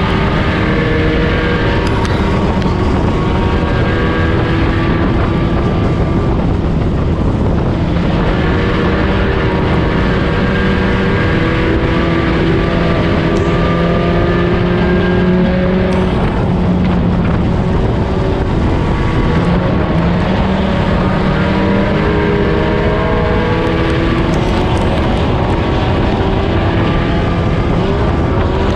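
Four-cylinder dirt-track race car engine heard from inside the cockpit, running continuously at speed on the track. Its pitch dips and climbs again several times as the car lifts and gets back on the throttle through the corners, over a rush of road and wind noise.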